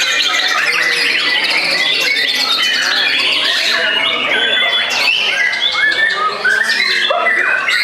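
White-rumped shamas singing over one another: a dense, unbroken tangle of rapid whistles, trills and harsh squawking notes from several birds at once.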